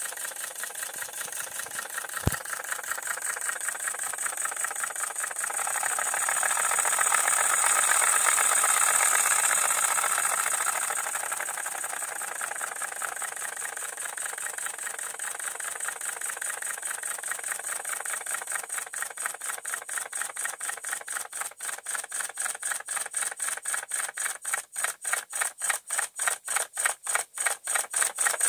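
Roundhouse Lady Anne model steam locomotive running on compressed air with its wheels off the track: a fast, hissing exhaust beat from the cylinders that swells in the middle and then slows to distinct puffs, about two or three a second, near the end. The valve gear has just been retimed, with its return cranks reset.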